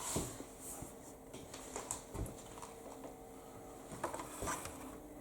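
Faint kitchen handling sounds: light knocks and rustling as chopped cabbage pieces and a dish are moved about, with a slightly louder knock about two seconds in and another near the end, over a faint steady hum.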